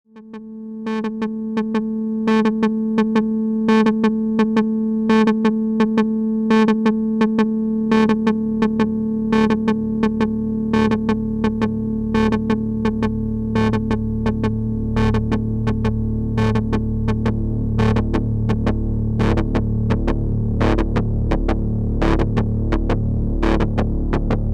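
Eurorack modular synthesizer patch, a gated oscillator run through a ring modulator with looping-envelope triggers: a steady buzzing drone under short, sharp blips that repeat in an uneven rhythm and grow denser as it goes. It fades in over the first couple of seconds, and from about halfway a deep bass tone swells underneath.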